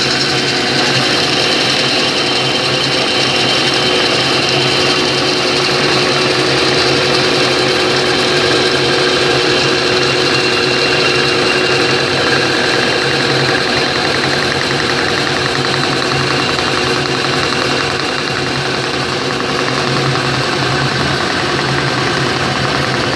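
Welding electrode production machinery running steadily: a loud, even mechanical rattle with a constant low hum and a high whine.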